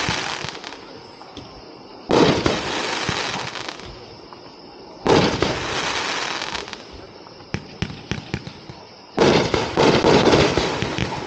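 Tornado Alley, a 24-shot consumer firework cake from the RDX line, firing. Three sharp bangs come roughly three to four seconds apart, each followed by a rushing hiss that fades over a second or two. A few faint pops fall between the second and third bangs.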